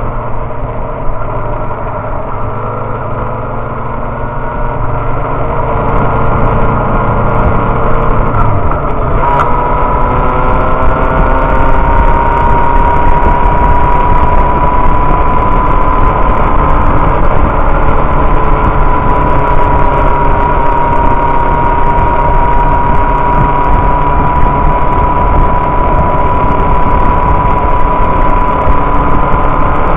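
Inline-four 600 cc sport motorcycle engine running at highway speed, heard from the rider's seat under heavy wind noise. About nine seconds in its pitch drops briefly with a click, then climbs slowly and holds steady.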